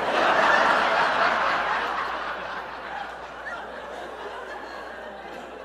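Audience laughing in a hall, loudest at the start and slowly dying away over several seconds.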